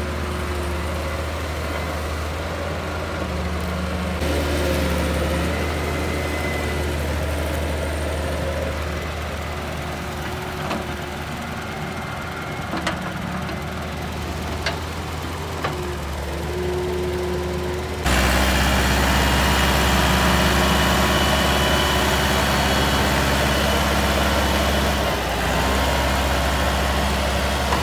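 Diesel engines of a Daewoo wheeled excavator and a Massey Ferguson 260 tractor running steadily while soil is loaded into the tractor's trolley, with a few sharp knocks in the middle. About two-thirds of the way through, the sound jumps louder to the tractor's three-cylinder diesel engine pulling the loaded trolley.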